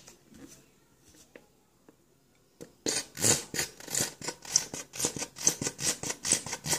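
Plastic syrup bottle held upside down and squeezed over waffles, giving a quick run of scratchy crackling clicks, several a second. The clicks start about three seconds in, after a near-quiet start.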